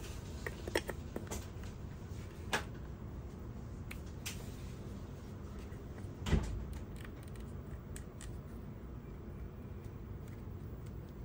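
Light clicks and knocks from a Sony A7R V camera body being handled and turned over, with one louder knock about six seconds in, over a steady low background noise.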